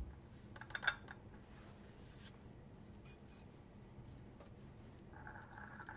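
Faint bench handling: a few light scrapes and clicks as potassium chloride powder is tipped from a plastic weigh boat into a glass beaker and the boat is set down, then scattered light ticks. A faint steady high tone starts about five seconds in.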